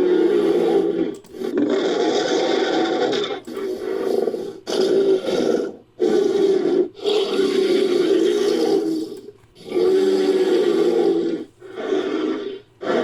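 Designed Majungasaurus roar sound effect, layered from stock monster and creature roars: a string of about nine deep roars and growls, each lasting about one to two seconds with brief breaks between them.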